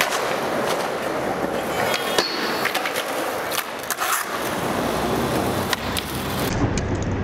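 Skateboard wheels rolling on smooth concrete, with sharp clacks and knocks from the board and trucks. In the second half the sound turns rougher and deeper as a board slides along a concrete-block ledge.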